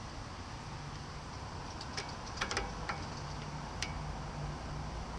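About five small, sharp metallic clicks between two and four seconds in, from small metal brake-caliper fittings and tools being handled, over a low steady hum.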